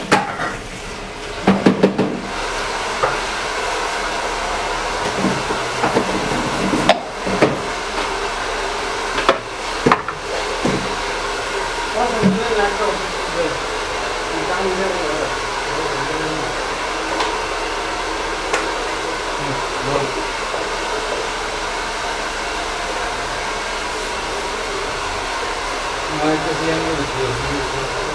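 A hair dryer switched on in the first second and then running steadily, with a few sharp knocks and clatters in the first ten seconds and faint voices underneath.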